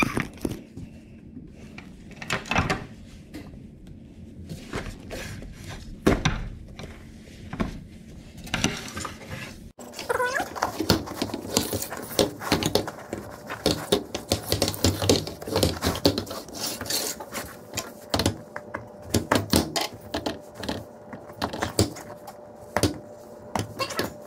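Steel hog rings being cut and yanked off a car-seat cover with pliers: irregular sharp metallic clicks and snips, one after another.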